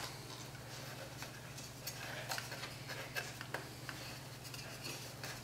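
Faint scattered small clicks and taps of camera parts and a lens attachment being handled and screwed on, over a steady low hum.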